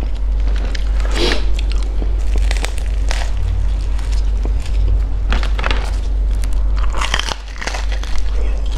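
Crisp batter of a Vietnamese fried banana fritter (bánh chuối chiên) crackling in several short bursts as it is handled and torn apart, then a crunchy bite near the end.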